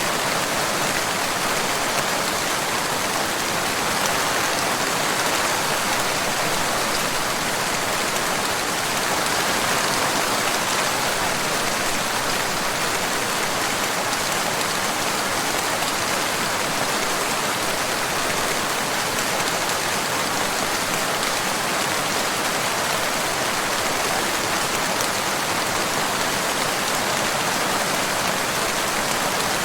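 Steady rain falling, an even, continuous hiss that holds at the same strength throughout.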